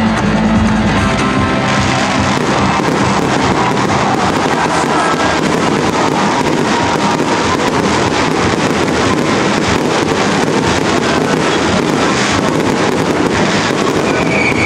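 Aerial fireworks bursting overhead in a dense, continuous run of cracks and pops, after music that is prominent for the first couple of seconds.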